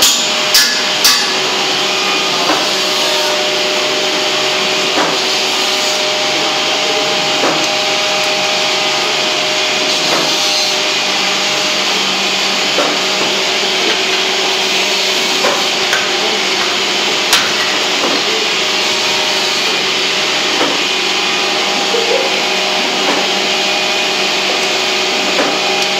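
Semi-automatic auger powder filling machine running: a steady motor hum and whirr as the hopper's agitator and auger turn. Light knocks come every two to three seconds, with one sharper click a little past the middle.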